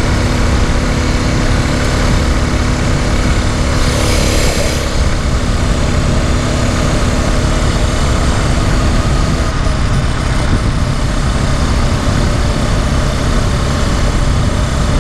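Small 49cc four-stroke engine of a motorized bicycle running steadily while riding, being broken in, under heavy wind buffeting on the microphone. Its steady note fades about nine and a half seconds in, and a brief hiss passes about four seconds in.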